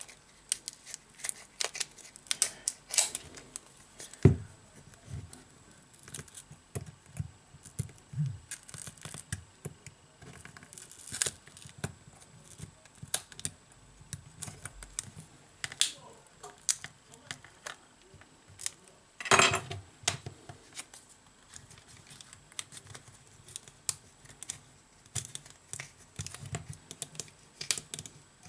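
Metal pry tool scraping and clicking along the edge of a Samsung Galaxy J7 (2017) as its glued display is pried away from the frame. Many short irregular clicks and scrapes, with a sharp knock about four seconds in and a longer half-second scrape about nineteen seconds in.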